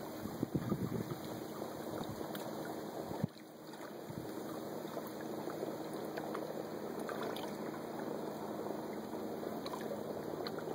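Steady outdoor rush of wind and choppy lake water, with a few low gusts buffeting the microphone about half a second in. A sharp tick about three seconds in is followed by a brief dip in the sound.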